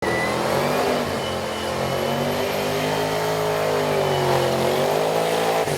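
Supercharged V8 engine of a VF Commodore drag car running at steady, held revs, its pitch dipping slightly and rising again, with a thin high whine over it. It cuts off abruptly near the end.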